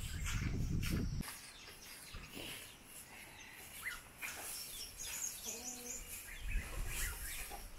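Short hand-held bundle broom sweeping a bare dirt yard in brief scratchy strokes, with birds chirping now and then. A low rumble fills the first second or so and comes back near the end.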